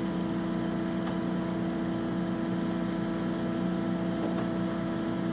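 Cazeneuve HB725 engine lathe's drive running with a steady, even hum while the spindle speed is being changed up to the high range.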